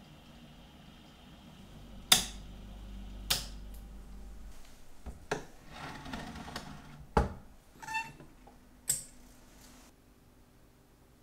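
Handling of an Elma watch-cleaning machine: a low hum for a couple of seconds, then a series of sharp plastic and metal knocks and clicks as its head and parts basket are lifted off, with a short metallic clink about eight seconds in.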